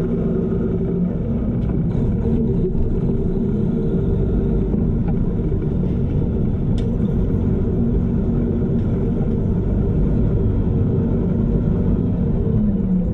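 Semi truck's diesel engine running steadily under way, heard from right beside the cab's chrome exhaust stack over a low rumble. The engine note dips near the end.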